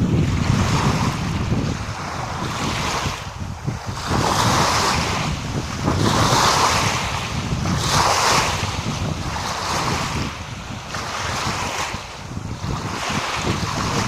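Small sea waves washing in, with a surge every one to two seconds, and wind rumbling on the microphone.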